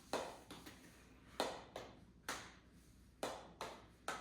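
Mini hockey sticks tapping and clacking against a ball and each other in knee hockey play: a string of sharp taps, about eight in four seconds, unevenly spaced.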